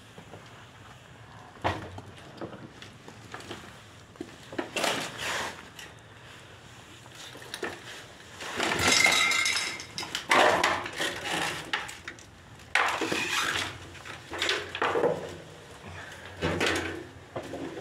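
Footsteps crunching over rubbish and broken glass on a tunnel floor, with irregular clinks, scrapes and clatters as debris shifts underfoot.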